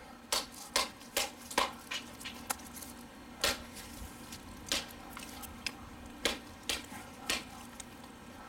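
Gerber Pack Hatchet blade chopping into a small stick of wood on a tree stump: about ten sharp chops at uneven intervals.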